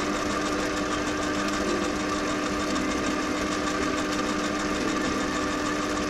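Metal lathe running steadily with an even hum, its chuck spinning as it turns a bronze-filled PTFE compressor seal blank.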